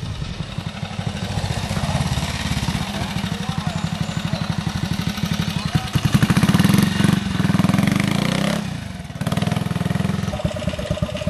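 Vintage trial motorcycle engine running at low revs on a steep climb, with fast, even firing pulses. It is loudest as the bike passes close about six seconds in, drops away briefly just before nine seconds as the throttle comes off, then picks up again.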